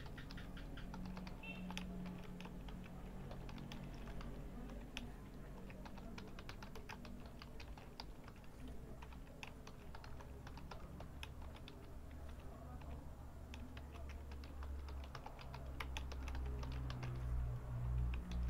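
Typing on a computer keyboard: quick, uneven runs of keystroke clicks. A low steady hum sits underneath and grows louder near the end.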